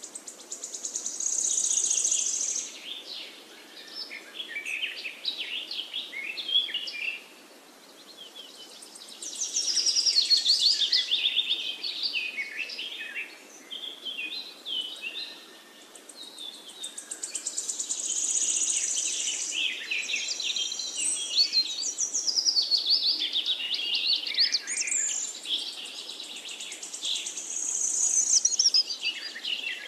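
Small birds chirping and singing, with bursts of quick trills and gliding notes swelling up about every eight seconds.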